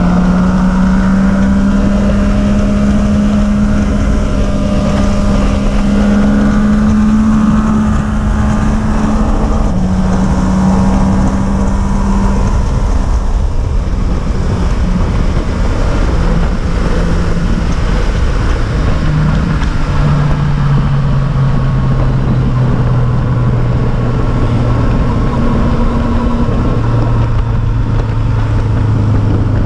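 A motor vehicle's engine running while under way, with road and wind noise. Its pitch shifts in small steps and settles lower in the second half.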